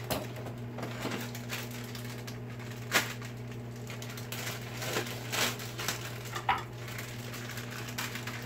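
Crinkling and rustling of a boxed scalloped-potato mix's cardboard box and plastic pouches being handled and opened, with a sharp tap about three seconds in and a few lighter clicks later, over a steady low hum.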